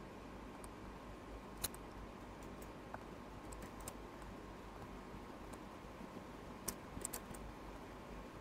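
A few faint, scattered clicks of a computer mouse and keyboard, with a short run of them about seven seconds in, over a low steady hiss.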